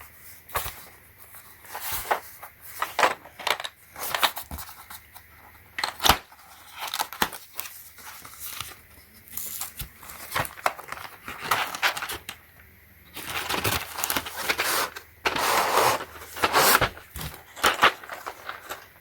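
Plastic packaging crinkling and rustling in irregular bursts, with small clicks and knocks, as a keycap set is unwrapped by hand.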